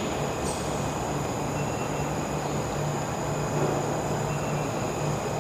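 A steady mechanical hum and hiss with a low drone that throbs on and off about twice a second.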